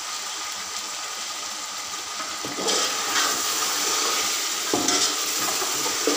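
Chicken and potato pieces sizzling in oil in a metal pot, with ground spices just added for the bhuna stage. About halfway through, stirring starts: a spatula scrapes through the pot in several strokes and the frying grows louder.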